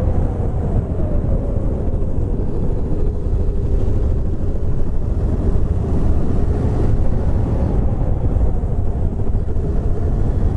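Honda Grom (MSX125) 125 cc single-cylinder motorcycle engine running steadily under way, its pitch easing slowly lower, under heavy wind rumble on the low-mounted camera's microphone.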